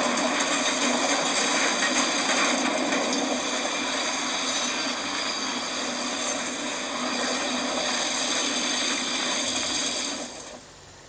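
Steady mechanical grinding noise with several held high tones, dying away about ten seconds in.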